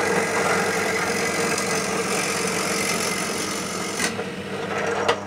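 Bench pillar drill running with a steady hum while its bit bores into a length of 4x2 softwood, with a couple of short knocks near the end.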